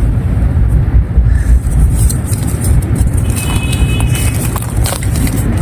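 Dry clay and claypot fragments crumbling and crunching, with scattered sharp crackles over a loud, steady low rumble.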